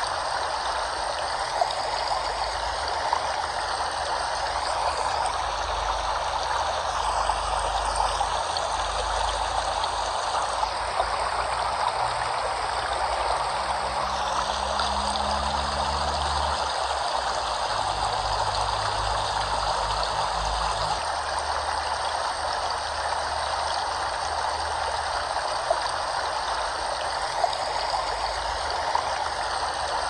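Flowing water rushing steadily, a continuous even wash of a stream or small waterfall.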